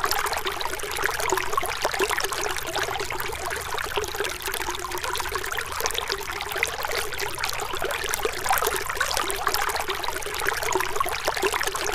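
Waterfall: water splashing and trickling in a steady, unbroken rush.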